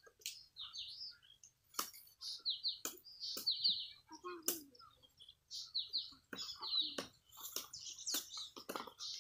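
Small birds chirping over and over in quick groups of short, high, falling notes, with a few sharp clicks and knocks in between.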